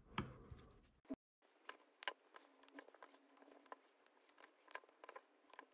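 Faint, irregular small clicks of 5 mm neodymium cube magnets and a metal insertion tool against a 3D-printed plastic bowl array as the magnets are pushed into its holes one by one.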